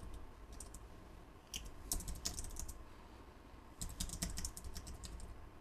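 Computer keyboard keystrokes, fairly faint, typing in three short bursts with pauses between.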